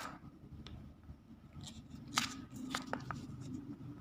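A spoon scraping and clicking against a container as a spoonful of body scrub is scooped in, with a few sharp clicks about two to three seconds in.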